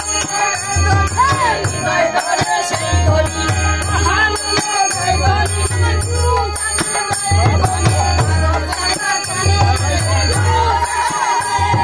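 Matua devotional kirtan: a group of voices singing to a harmonium, with continuous ringing hand cymbals and stretches of a low drum beat. A long wavering high note joins near the end.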